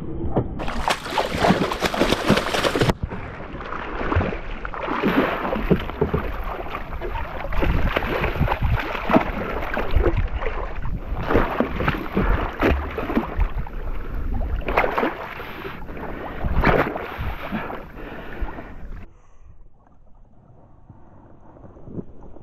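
Water splashing and sloshing around a fishing kayak in an irregular wash, with sudden louder splashes. It drops away abruptly near the end.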